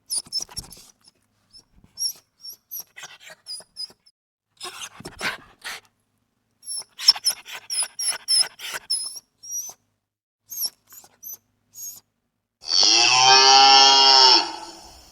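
A run of short, high squeaky chirps with faint clicks, then a cow mooing once, long and loud, near the end.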